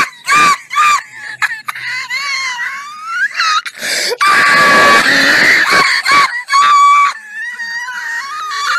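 A person's shrill, screaming laughter in repeated bursts with wheezy gasps, the pitch swooping up and down.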